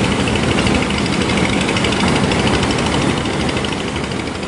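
Steady, loud rushing of river water, with a faint, fast, high pulsing over it.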